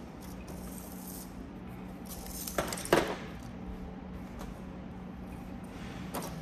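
Small items being set down on a glass tabletop: a few short clicks and knocks, the loudest about three seconds in, with fainter taps later. A steady low hum sounds underneath.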